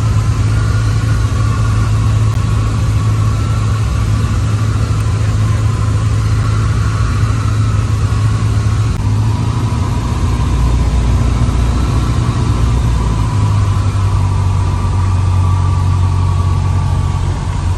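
Airplane engine drone heard from inside the cabin in flight: a loud, steady low hum with a higher whine on top, the pitch shifting slightly about halfway through.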